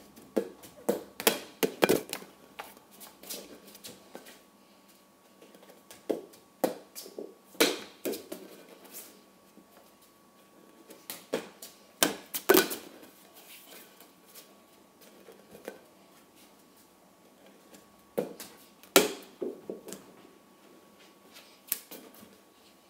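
Flat plastic soccer ball being kicked with a bare foot and bouncing on a hard stone floor, with bare feet slapping the floor, in several short bursts of sharp taps and thuds with pauses between.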